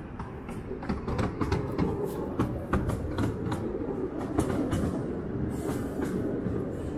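A train running along its track: a steady low rumble with irregular clicking and clacking from the wheels over the rails.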